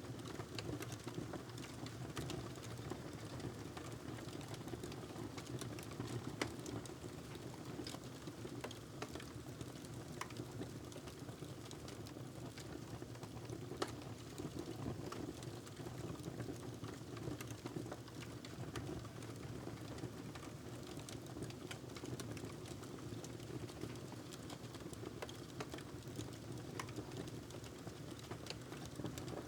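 Wood fire in a fireplace crackling, irregular sharp pops and snaps over a steady low rumble, with a louder pop now and then.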